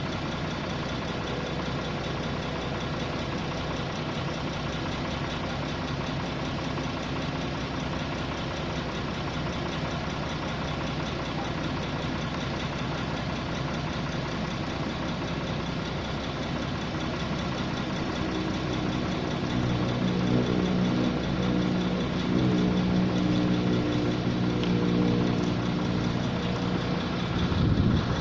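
Engine of a 655 CFM portable air compressor running steadily at idle. About two-thirds of the way through, a stronger, deeper engine hum comes in and the sound grows a little louder.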